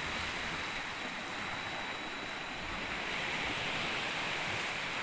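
Steady rush of sea waves washing in, an even wash of noise with no distinct breaks.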